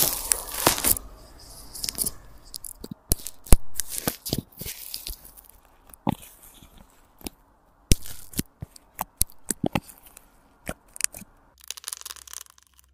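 Bubbly, airy slime being pressed and stirred by fingers and a utensil in a plastic tub, crackling and popping with many sharp clicks at an uneven pace. A short hiss near the end.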